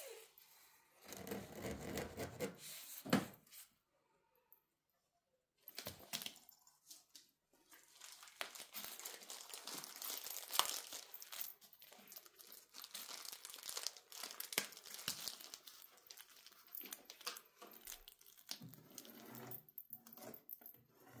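A cat playing with its toys: scratchy crinkling and tearing noises with many sharp little clicks. They run on and off, with a short pitched sound about a second in.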